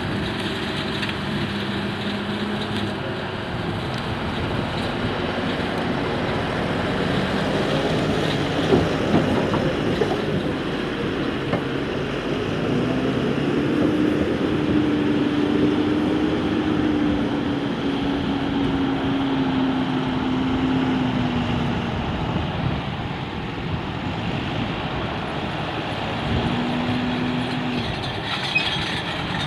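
Heavy farm machinery running, with engine tones that shift in pitch and a continuous clattering rattle, and a few sharp knocks about nine seconds in. The engine note rises about thirteen seconds in, then sinks slowly.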